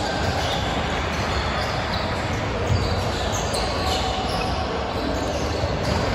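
Echoing gymnasium hubbub during a basketball game, with a basketball bouncing on the hardwood court and a few short high sneaker squeaks.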